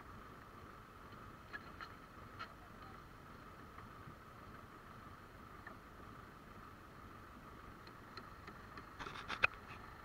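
Tractor running steadily, heard muffled as a low even hum, with a few light knocks about a second and a half in and a quick cluster of sharper clicks and knocks near the end.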